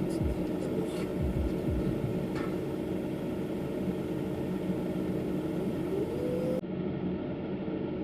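Car heater fan blowing steadily inside the car cabin, with a muffled car radio faintly underneath.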